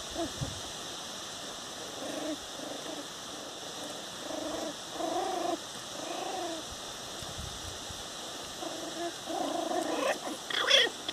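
Four-week-old puppies whining and grunting in short notes that rise and fall in pitch, repeated several times, with higher-pitched squeals near the end.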